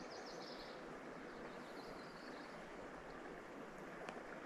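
Faint, steady rush of a small creek's running water, with a few faint high chirps.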